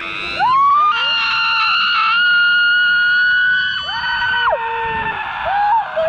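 Several people in a laughter yoga group screaming together, overlapping long high-pitched held cries, with shorter rising and falling cries near the end.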